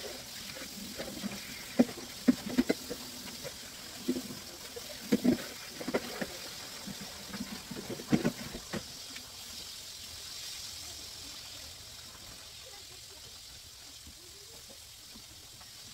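A pot of water boiling on the stove, a steady hiss and bubbling, with scattered knocks and clatters of pots and utensils in the first half.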